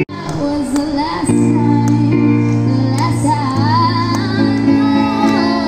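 A young woman singing a slow song with vibrato into a microphone, over held chords on a street busker's electric keyboard, both amplified.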